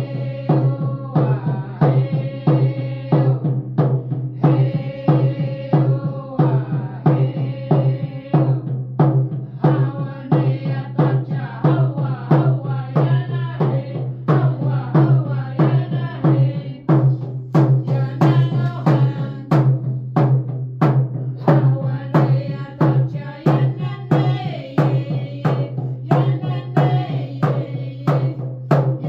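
Group drum song: hand drums struck with padded drumsticks in a steady, even beat, with voices singing over them.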